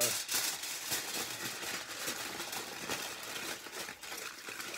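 Sheet of aluminum foil being crumpled and squeezed into shape by hand: a continuous dense crinkling crackle.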